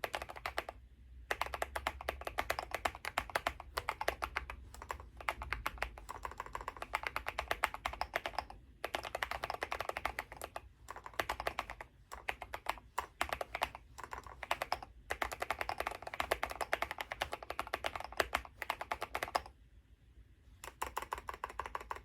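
Fast typing on a mechanical keyboard: dense runs of key clicks broken by short pauses, with a longer pause near the end before a last burst that stops abruptly.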